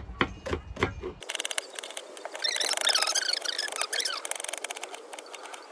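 Knife slicing onions on a cutting board, about five strokes in the first second. It then changes abruptly to a fast run of light ticks, with high squeaky chirps in the middle.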